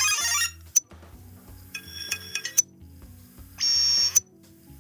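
Short phone sound-effect previews playing over steady background music: a noisy chiming burst that ends about half a second in, a quick pattern of chimes around two seconds in, and a loud electronic beep lasting about half a second near the end, with sharp clicks between them.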